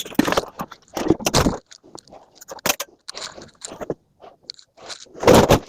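Scrap metal being handled: an irregular run of scrapes and clatters, with the longest and loudest one about five seconds in.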